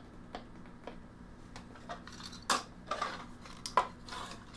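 Light knocks and clinks as old wooden sewing machine drawers and a cast iron treadle frame are handled and shifted on a workbench, with a few sharper knocks in the second half.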